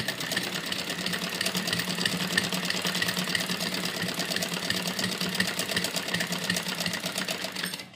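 Sewing machine running steadily, a rapid even ticking of needle strokes as it stitches close along the edge of a neckline; it stops just before the end.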